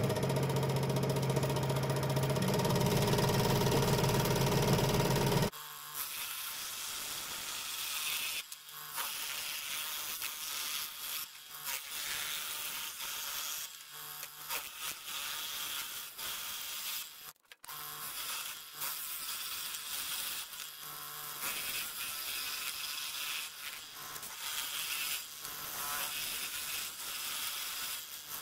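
Craftsman scroll saw running. For the first five seconds or so there is a loud, steady motor hum. After an abrupt change it becomes a thinner, higher buzzing as the blade cuts the taped-pattern board.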